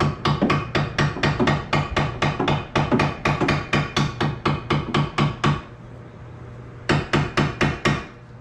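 Hammer striking a cold chisel in rapid, even blows, about four a second. The chisel is being driven into the strut clamp to spread it. The blows stop for about a second and a half, then five more follow.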